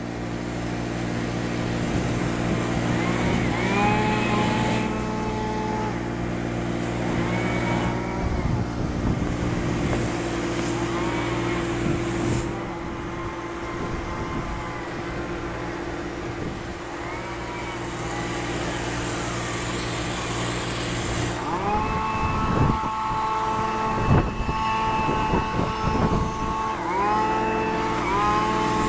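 Steady drone of a pressure-washing rig's engine running, with the hiss of the spray wand wetting the tile roof. Several held tones, each starting with an upward slide, come and go over it, most densely near the end.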